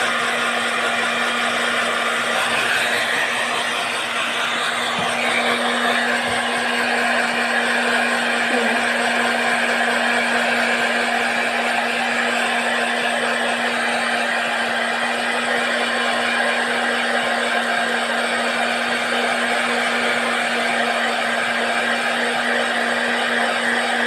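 Handheld blow dryer running steadily: a constant motor hum under an even rush of air.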